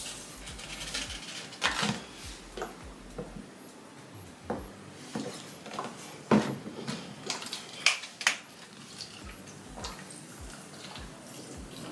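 Small plastic bottles and a packet being handled, squeezed and set down on a tiled floor: scattered light clicks and knocks, the sharpest about six and eight seconds in.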